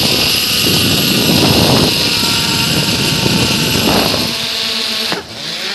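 Zipline trolley pulleys running along the steel cable: a loud, steady whir with a high hiss and several ringing tones, over an uneven low rumble. It drops away sharply a little after five seconds in.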